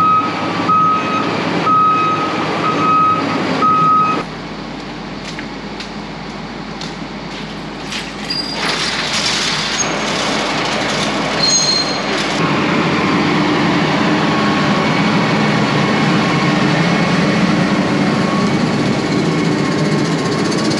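RoGator self-propelled sprayer backing up, its reversing alarm beeping about once a second, then stopping about four seconds in. The machine's engine keeps running steadily, louder from about twelve seconds in, with a few brief high squeaks just before.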